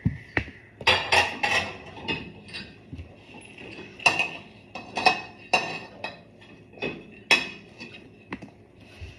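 Dishes and cutlery clinking and knocking as they are lifted out of a dishwasher rack, a dozen or so separate clatters, some ringing briefly.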